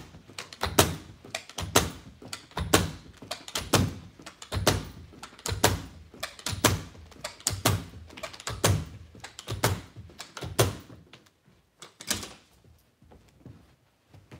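Carpet knee kicker being bumped with the knee, one solid thud about every second, hard-stretching the carpet so its backing hooks onto the tack strip. The kicks stop about three quarters of the way through, leaving a few quieter knocks.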